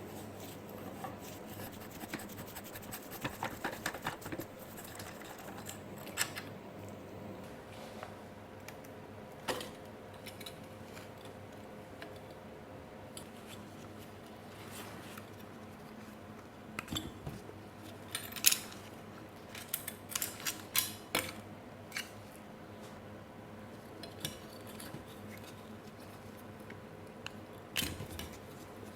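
Hand tools clicking and clinking against metal parts while an old trike is taken apart. There is a quick run of clicks about three seconds in and a cluster of sharper clinks a little past the middle, over a steady low hum.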